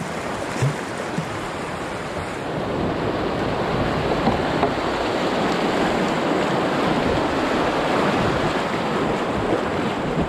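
Rushing whitewater of a small river rapid around an open canoe, a steady loud rush of water that swells a couple of seconds in.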